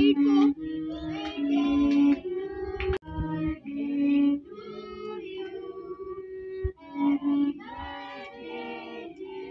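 Music with singing voices, children's and women's among them, in held melodic notes.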